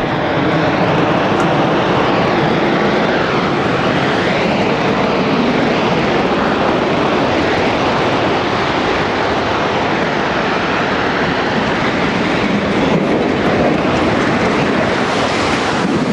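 Loud, continuous rumbling roar of a World Trade Center twin tower collapsing, steady and unbroken throughout.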